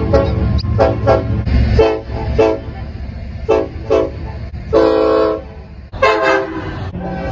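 Train horn sounded in a quick series of short blasts, then one longer blast about five seconds in and another short one just after. A low rumble runs under the first two seconds.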